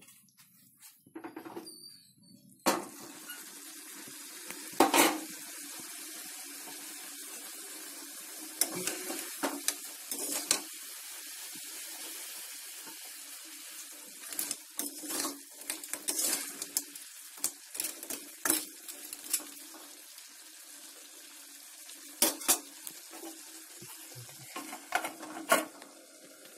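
Crab curry sizzling in an aluminium pot on a gas stove. The sizzle starts suddenly about three seconds in and runs steadily, with a metal spoon stirring and clanking against the pot every so often.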